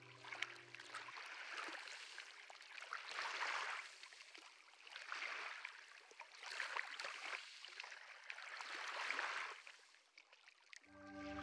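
Small waves washing onto a pebble shore: each surge a hiss of breaking foam that swells and ebbs about every two seconds, with light clicks of shingle. The waves die away near the end.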